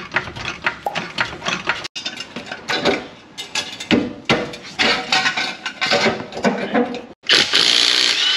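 Hand tools working on a truck's suspension: a ratchet clicking and metal tools and parts clinking and knocking, in short cut-together pieces. Near the end there is about a second of loud, steady rushing noise.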